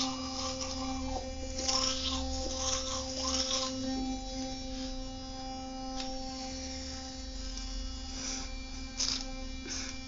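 Electric toothbrush buzzing steadily at one pitch while brushing teeth, with bursts of wet scrubbing and swishing from the brush head in the mouth.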